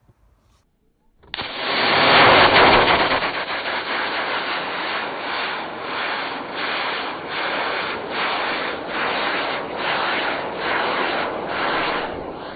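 Model rocket launch: a pair of C6 black-powder motors ignite with a sudden loud rushing hiss about a second in. The rush is loudest for the first two seconds, then carries on a little lower, pulsing about every half second, and stops near the end.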